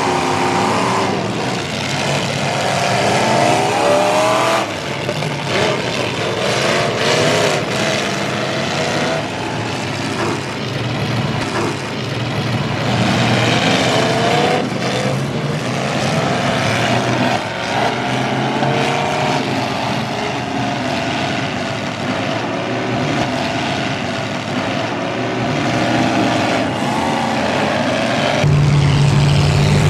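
Several full-size demolition derby cars' engines revving and running at once, their pitches rising and falling as the drivers accelerate and back off. Near the end the sound turns deeper and a little louder.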